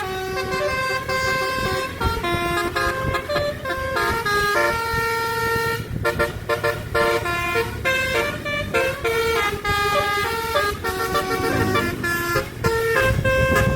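Tour bus's basuri telolet horn playing a tune: a quick run of horn notes stepping up and down in pitch, some held for about a second, over a low vehicle rumble that swells near the end.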